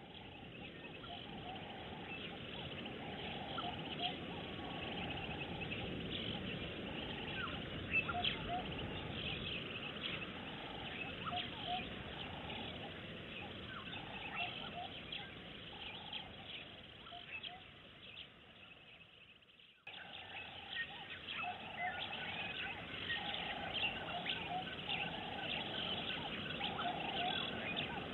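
Outdoor bush ambience: many short bird chirps over a steady background hiss. The sound fades down and cuts back in abruptly about twenty seconds in.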